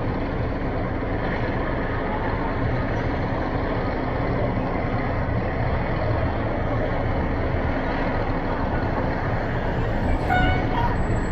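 Ladder fire truck's diesel engine running steadily as the truck slowly backs in. About ten seconds in, a passing vehicle briefly gets louder, with a short high-pitched squeal.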